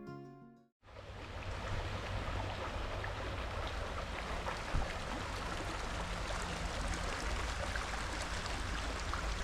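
Steady rushing of running water, with a single faint click about five seconds in.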